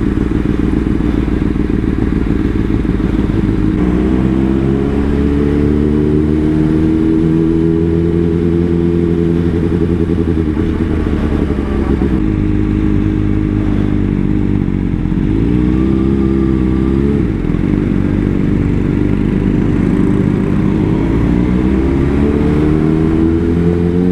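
Honda CBR600RR inline-four engine running at low speed, its pitch rising as it pulls away, falling off, dipping and picking up again about two-thirds through, and climbing again near the end.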